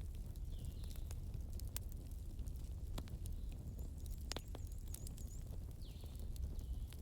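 Wood fire in a fireplace crackling, with frequent sharp pops over a steady low rumble of the flames. A few faint, short high whistles are heard, at about half a second, around five seconds and near the end.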